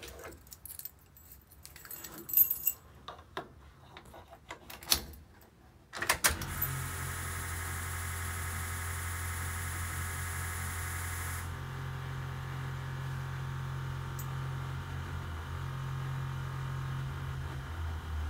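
Keys jangling and clicking in the ignition, then about six seconds in a steady electric hum starts with the key switched on: the fuel pump of the swapped-in 6.0 Powerstroke diesel priming the fuel system before a start after sitting a month. A higher hiss in it drops away about halfway through, while the low hum runs on.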